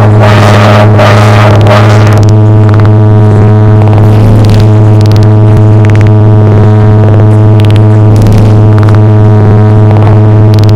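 A loud, steady, low droning tone with a buzzy stack of overtones, held unchanged throughout; for the first couple of seconds a rough, crackling rumble sits on top of it.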